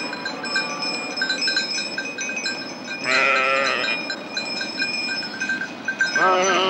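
Sheep bleating: two long, wavering bleats, one about three seconds in and another near the end, over a steady high tinkling in the background.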